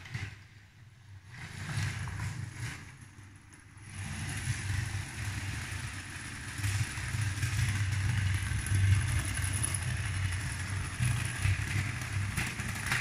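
LEGO 12V train running along plastic track: a steady rumble and rattle of the wheels and motor with a thin high whine, settling in from about four seconds in after a quieter, uneven start.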